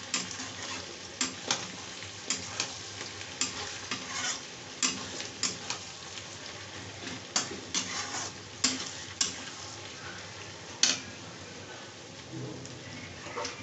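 Sliced onions sizzling in a metal kadhai, with a metal spatula scraping and clinking against the pan at irregular intervals as they are stirred. The scraping falls away near the end while the frying sizzle goes on.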